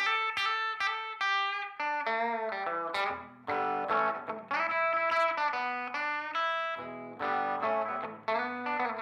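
Mitchell semi-hollow electric guitar with an old DeArmond 'poker chip' pickup, playing a blues instrumental break: picked single notes and chord stabs one after another, some left ringing for about a second.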